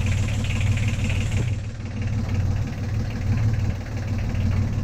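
An engine running steadily at idle, a low, evenly pulsing rumble.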